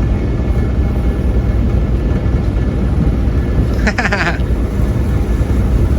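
Dive boat's engine running steadily with a low, loud drone. About four seconds in, a brief higher-pitched sound cuts in over it for about half a second.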